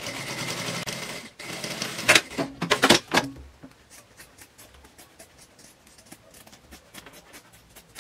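Industrial lockstitch sewing machine running in a short stitching burst, pausing briefly and running again, followed by a few sharp clacks. After that come quieter, quick snips of scissors trimming the fabric edges, several a second.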